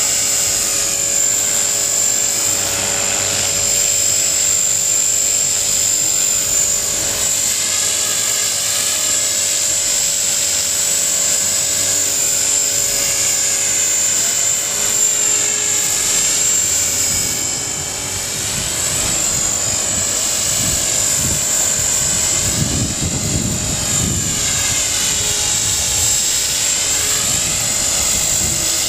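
T-Rex 450 clone electric RC helicopter in flight: a steady high whine from the brushless motor and gears over the whir of the rotor blades. The tone swirls up and down slowly as the helicopter moves about.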